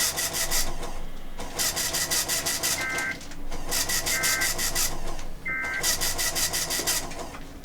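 NOAA Weather Radio end-of-message data bursts: three short two-tone digital chirps about a second apart, near the middle of the stretch. They sound through heavy radio reception static that pulses rapidly and evenly, about ten pulses a second, and breaks off briefly a few times.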